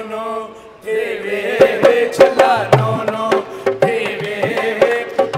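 Qawwali-style music: a man singing with tabla beats and sharp drum strokes. A held note fades out over the first second, and the singing comes back in about a second in.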